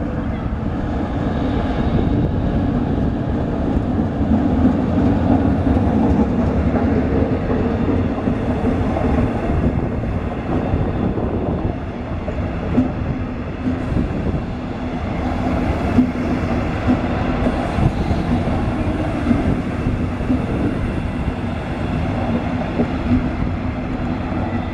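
Passenger train hauled by a Siemens ER20 (class 223) diesel-electric locomotive rolling past: the locomotive's diesel engine runs steadily as it draws near. From about halfway through, the coaches' wheels click over the rail joints as they roll by.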